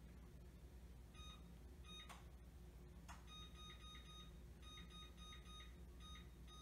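Faint electronic beeping in repeating runs of quick beeps, starting about a second in, over a low steady room hum.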